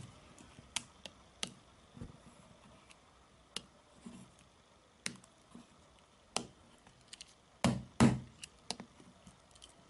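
Swiss army knife blade striking and scratching a Sony Ericsson Xperia phone: scattered sharp clicks and ticks, with two louder knocks close together near the end.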